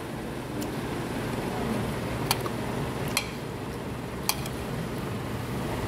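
Steady hum of a small eatery's room ambience, with three sharp clicks of a steel spoon knocking against a ceramic plate.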